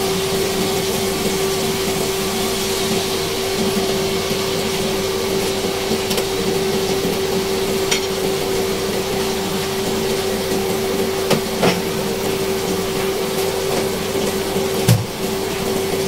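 Pork ribs sizzling in sauce in a nonstick wok, over a steady hum. A few light knocks come about eight seconds in, twice around eleven and a half seconds, and once near the end.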